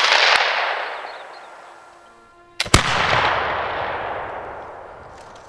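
Baker rifle, a flintlock muzzle-loader, fired twice: one report just as the sound begins, dying away over about two seconds, then a second shot a little under three seconds in, a short crack followed a split second later by the main bang, with the report rolling away over the next few seconds.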